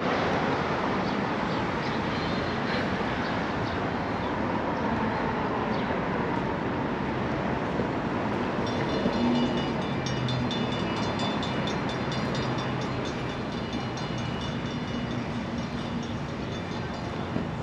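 Outdoor street ambience: a steady rumble of passing traffic with a train going by. From about nine seconds in, a rapid, evenly repeating high ringing joins it.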